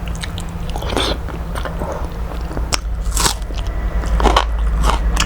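Close-up biting and chewing of crispy fried food, a run of irregular crunches and crackles, over a steady low electrical hum.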